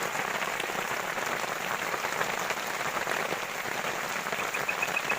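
Steady rain falling and pattering, an even rushing hiss. Near the end a cricket starts a high, rapid, evenly paced chirping.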